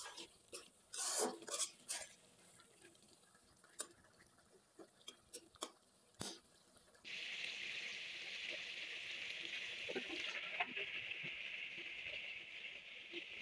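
A spatula scraping and clicking against a metal karai as a shrimp-and-potato curry is stirred. About seven seconds in, a steady sizzle starts abruptly: food cooking in the hot pan.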